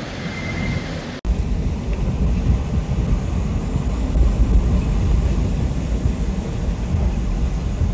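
Storm wind buffeting the microphone as a heavy low rumble. The sound cuts off abruptly about a second in, then comes back as a deeper, louder rumble.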